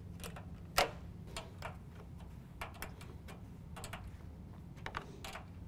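Scattered light clicks and ticks of a 10 mm wrench working the bracket bolts on a plastic truck grille, about nine in all at uneven spacing, the sharpest about a second in, over a steady low hum.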